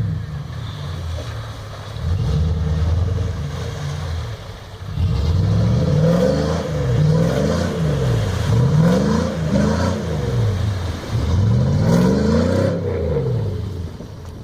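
A motor vehicle's engine running and revving, its pitch rising and falling over and over, about once a second, through the second half.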